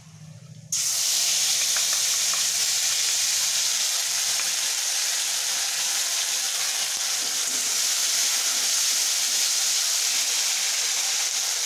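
Cashew, almond, poppy-seed, ginger and green-chilli paste sizzling in hot oil in a kadai. The sizzle starts abruptly under a second in and holds steady.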